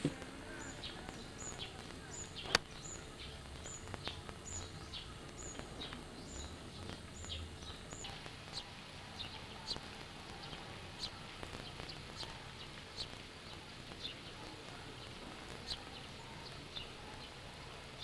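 Birds chirping: a short, high call repeated about twice a second for the first eight seconds, with other short chirps scattered throughout, over faint background noise. One sharp click about two and a half seconds in.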